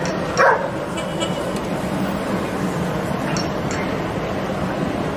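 A dog barks once, loudly, about half a second in, over steady city street and traffic noise; fainter barks follow later.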